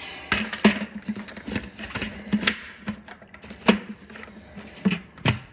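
Clear plastic dust bin of a Dyson Ball Animal upright vacuum being knocked and shaken over a trash can to empty out packed dog hair and dust. It makes a string of irregular, hollow plastic clacks and knocks, about a dozen, several of them sharper and louder than the rest.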